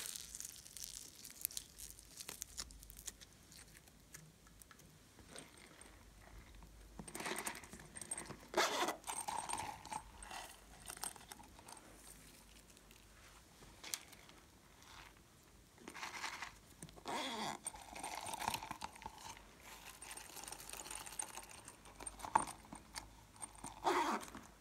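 Quiet slime-handling sounds: foam-bead slime squeezed between fingers, glitter toppings dropped into a tray of slime, and plastic clay containers handled. They come in a few short crackly clusters with quieter stretches between, the sharpest click near the end.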